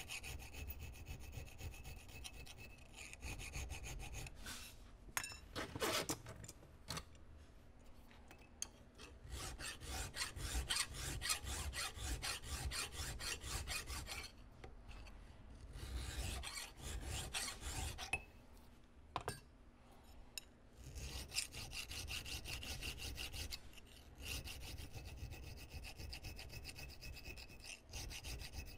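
Hand file cutting a small metal part: runs of rapid, even file strokes broken by short pauses, with a few sharp clicks now and then.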